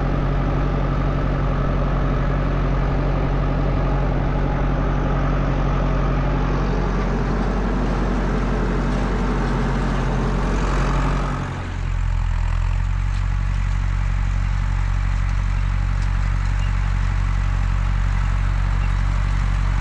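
Massey Ferguson 178 tractor's Perkins four-cylinder diesel running steadily while driving across the field, heard close up from the seat. About halfway through it changes to the same tractor heard from out in the field, a lower, duller drone with the higher sounds gone.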